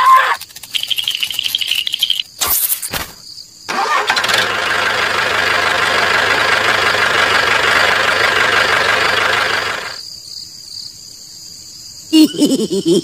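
Engine sound effect: an engine starts about four seconds in, runs steadily for about six seconds, then cuts off. Before it come a short high whistle and a few clicks.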